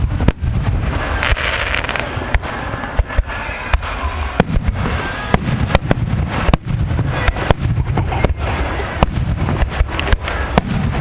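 A fireworks display: dozens of aerial shells bursting in quick, irregular succession, several sharp bangs a second, over a constant low rumble.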